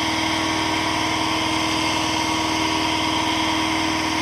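Electric motor spinning a wooden disc of magnets past a copper tube coil, running with a steady hum. It is working hard against the eddy-current drag, drawing around 700 watts and heating up.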